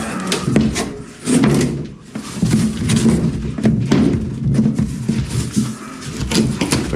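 Irregular knocking and banging with scraping in between, from a wall panel being worked loose and handled during a kennel wall repair.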